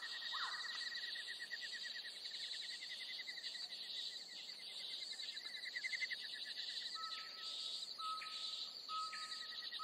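Birds singing: fast trills and a few short falling calls, then short, steady whistled notes repeated from about seven seconds in, over a steady high-pitched chirring.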